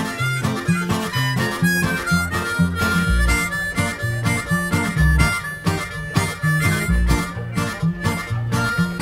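Background music: an instrumental stretch of a pop song, with harmonica over bass and a steady beat.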